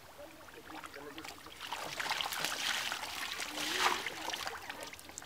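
Muddy water being bailed by hand with a bowl: repeated sloshing and splashing as water is scooped up and flung out, starting about two seconds in after a quieter opening.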